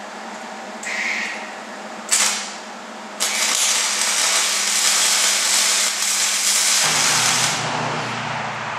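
Electric arc welding on steel fence T-posts: two short tack welds about one and two seconds in, then a steady crackling weld lasting about four seconds.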